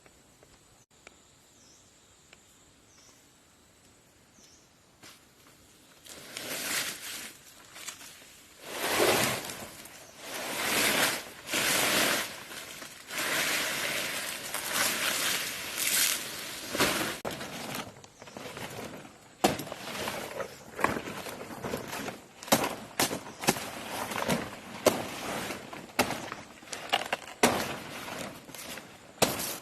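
Dry leaves and brush rustling and crunching in long sweeps, starting about six seconds in, then a quicker run of sharp snaps and knocks, like twigs breaking.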